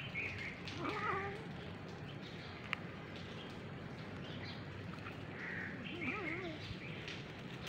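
A domestic cat meowing twice: a short call about a second in and a wavering one around six seconds in.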